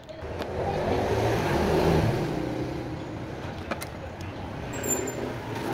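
A motor vehicle passing by, its engine noise swelling over about two seconds and then slowly fading.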